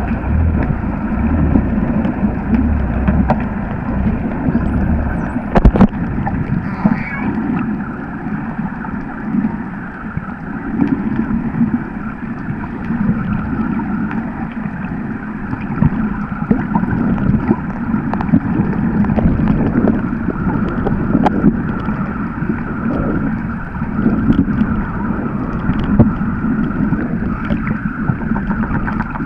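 Underwater recording: a steady, muffled rush and gurgle of water around the camera housing that swells and fades, with scattered sharp clicks.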